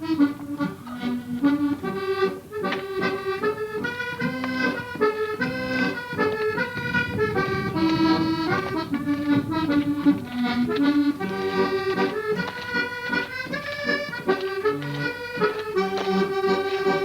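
Accordion playing a medley of tunes: a melody of quickly changing notes over bass notes.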